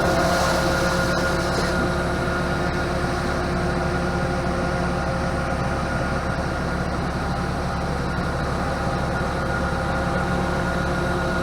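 Steady drone of running farm machinery, with several constant whining tones over a low rumble.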